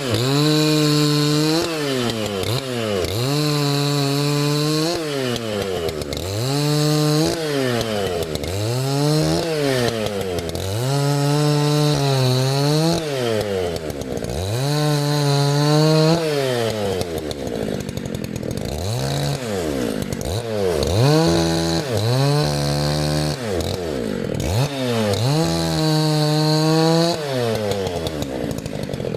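Dolmar PS-9010 90cc two-stroke chainsaw being revved up and let back down over and over, about every two seconds, its pitch climbing to full throttle, holding a moment and dropping back.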